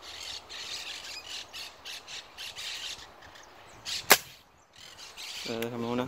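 A flock of parakeets squawking in quick, overlapping calls, then a single sharp crack of a .25 calibre air rifle shot about four seconds in. A man's voice comes in near the end.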